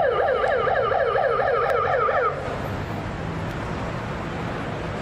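Fire service vehicle's siren in a fast yelp, its pitch rising and falling about five or six times a second, stopping suddenly a little over two seconds in. Road traffic noise of passing cars follows.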